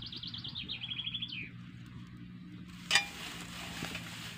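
A songbird singing a fast trill of repeated high notes that steps down to a lower trill and ends on a falling note. About three seconds in comes a single sharp snap, the loudest sound, followed by a soft hiss, over a low steady hum.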